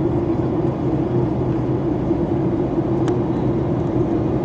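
Steady drone of an airliner cabin in flight: engine and airflow noise with a constant hum, and a faint tick about three seconds in.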